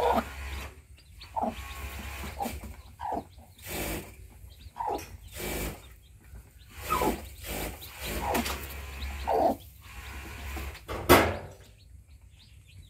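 Brooding hen clucking in short, falling calls every second or so while she is handled on her straw nest, with straw rustling and a few sharp handling knocks, the loudest about eleven seconds in.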